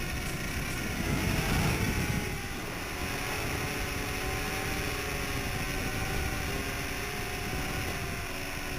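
Nano quadcopter's small motors and propellers whining, several tones wavering up and down in pitch as the throttle changes, over a low rumble that swells louder about a second in.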